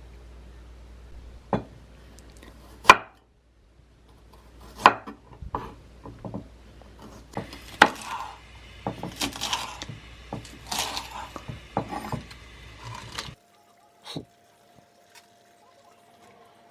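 Dishes and utensils being handled, clinking and knocking: a string of sharp knocks, the loudest about three seconds in, then busier clatter with some scraping in the second half. A low hum cuts off abruptly near the end.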